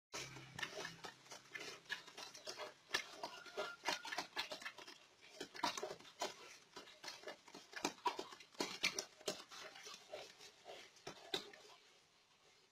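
Two wild boars fighting, shoving against each other: irregular sharp clicks and scuffling noises, with some animal sounds mixed in.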